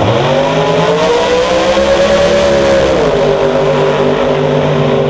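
Two drag race cars launching off the line and accelerating hard, their engines climbing steeply in pitch. The pitch falls sharply about three seconds in, then runs steady.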